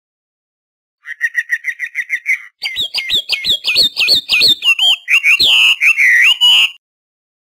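Starling calling: a fast trill of about eight notes a second, then a run of whistled notes that slide up and down in pitch.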